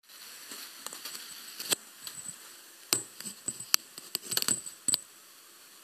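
Handling noise from the recording device being picked up and moved: irregular knocks and small metallic clinks, scattered over the first five seconds, before any playing starts.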